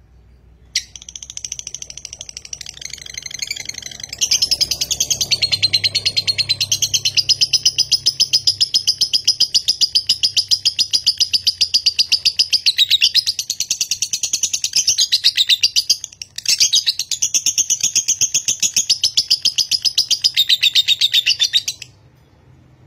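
Fischer's lovebird singing one long, rapid, high chattering trill without a pause for breath. This is the 'ngekek panjang' long chatter that marks a 'konslet' lovebird. It starts about a second in, grows louder a few seconds later, breaks once for a moment about two-thirds of the way through, and stops near the end.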